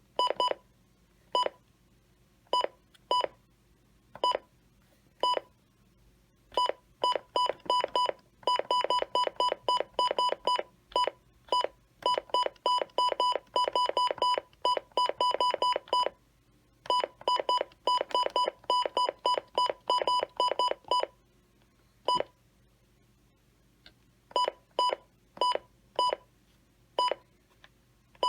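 Electronic beeping: many short beeps of one steady high tone, in irregular runs that are sometimes sparse and sometimes rapid and dense, with pauses between.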